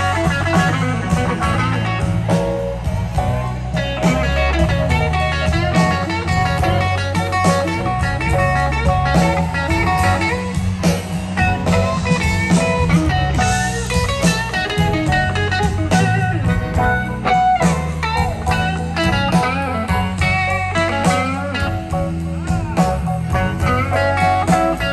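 Live blues band playing an instrumental passage of a slow blues: a lead electric guitar over bass and drums, with no singing.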